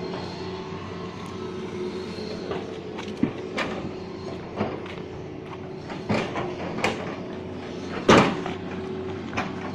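Diesel engines of two hydraulic excavators running steadily, with irregular clanks and knocks as their buckets work boulders. The loudest knock comes about eight seconds in.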